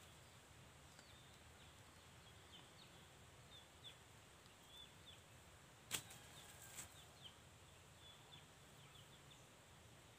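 Near silence: faint outdoor ambience with scattered faint short high chirps, and a single sharp click about six seconds in followed by a few softer ticks.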